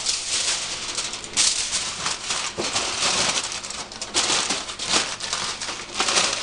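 Heavy-duty aluminum foil crinkling and crackling as it is folded and crumpled by hand around a foil-wrapped chicken, in an uneven run of rustles and sharper crackles.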